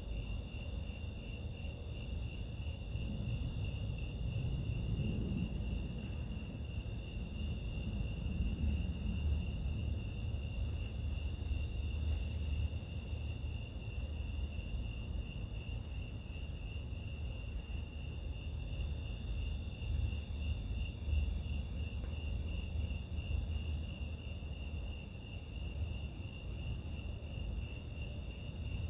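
Crickets chirping in a steady, continuous high trill, over a low rumbling noise that swells for a few seconds early on.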